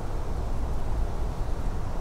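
Steady low rumble of wind buffeting the microphone, with no distinct sounds standing out.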